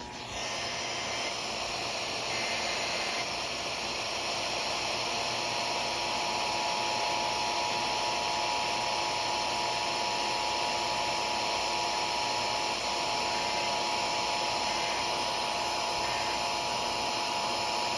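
Steady static hiss from a radio broadcast, rising in level about a second in, with faint steady tones humming underneath.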